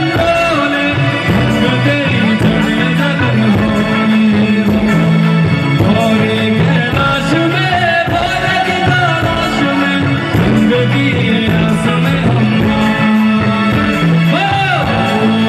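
Live song played over a stage sound system: a male lead vocalist singing with a backing band on drum kit and keyboard.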